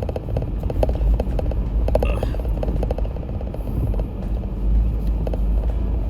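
Jeep crawling over a rocky off-road trail: a steady low engine and drivetrain rumble with frequent short rattles and knocks from the body.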